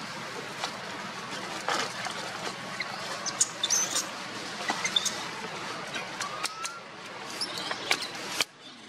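Steady outdoor background with scattered short, high squeaks and chirps and dry rustling clicks, such as monkeys moving and squeaking among dead leaves; the sound drops away sharply near the end.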